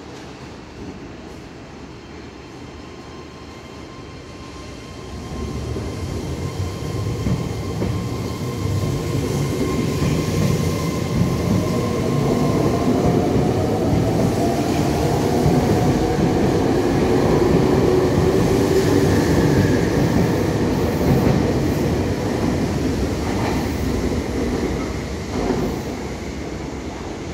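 Meitetsu electric train, a 3100-series and 3500-series six-car set, pulling out of the platform. The motor whine rises in pitch as it speeds up and grows louder as the cars pass, and near the end the wheels clack over rail joints.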